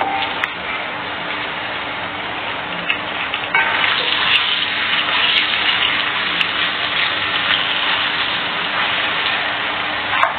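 Water running steadily, as from a tap, getting louder about three and a half seconds in.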